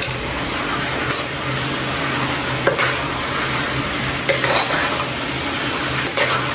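Chicken pieces sizzling in a pan as they are stirred to coat them with curry powder, with occasional scrapes and clinks of the utensil against the pan.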